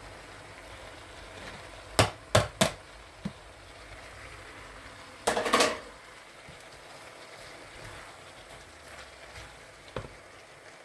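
Kitchenware knocking against a frying pan: three sharp knocks in quick succession about two seconds in, then a short clattering scrape about five seconds in as a wooden spatula stirs the ingredients, and one light tap near the end.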